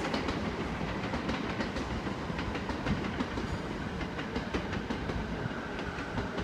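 E217 series electric train running along the track, a steady rumble with the wheels clacking over rail joints.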